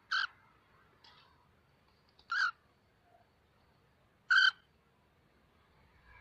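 Cockatiel giving short, harsh single calls, three loud ones about two seconds apart with a fainter one between the first two, the last call the loudest.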